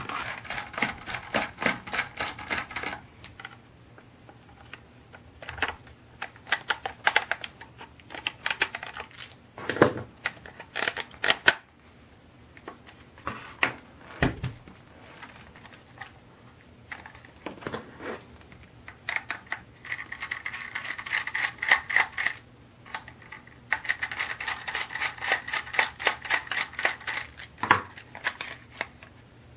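Plastic cyclone assembly of a Dyson V6 vacuum being scraped and poked with a small tool to clear packed dust from its cones: rapid clicking and scratching in runs, with a few louder knocks as the plastic parts are handled.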